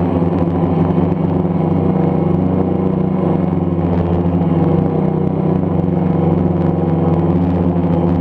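Camera drone hovering, its propellers and motors giving a loud, steady, even hum.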